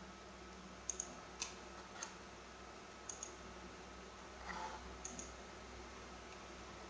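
Computer mouse button clicking: about eight sharp, quiet clicks, three times in quick pairs like double-clicks. A soft rustle comes about four and a half seconds in.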